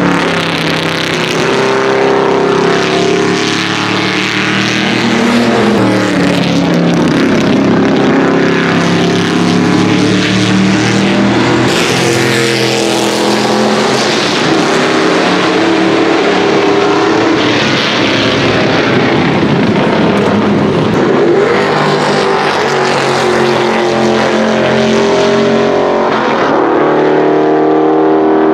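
The 1977 Aston Martin RHAM/1 race car's 5.3-litre V8 at racing speed through a very loud open exhaust, passing on track with its note rising and falling.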